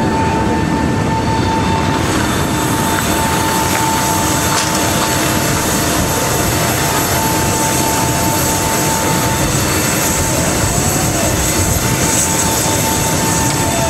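Boeing C-17 Globemaster III's Pratt & Whitney F117 turbofan engines running on the ground: a loud, steady roar with constant high-pitched whines.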